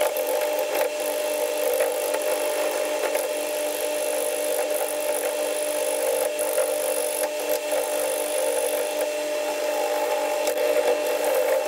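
Gouge cutting into a spinning ash blank on a vintage Coronet wood lathe: a continuous rough cutting noise with a steady hum from the running lathe. The blank is out of round, so the cut judders.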